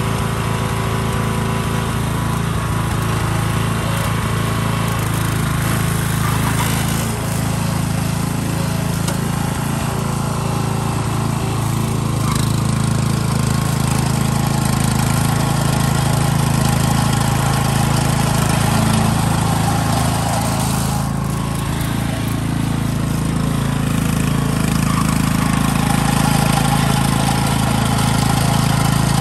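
Wisconsin Robin gasoline engine of a Ryan LA28 walk-behind core aerator running steadily, driving the chains and coring tines.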